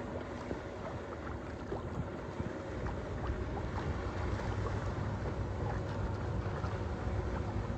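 Wind buffeting the microphone on a small sailboat under way, with water washing along the hull and scattered light knocks. The low rumble of the wind grows louder a few seconds in.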